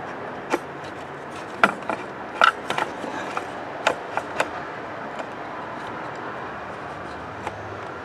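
Light knocks and scrapes from a hand and a test light probe being worked in among engine-bay parts. Most come in the first half, over a steady background hum.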